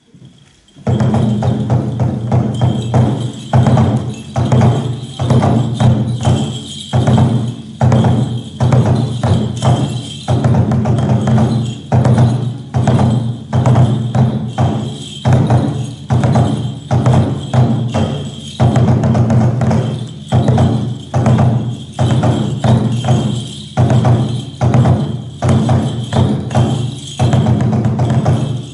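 Kagura accompaniment: a taiko drum beaten in a brisk repeating rhythm with clashing hand cymbals and a held high tone over it, starting about a second in.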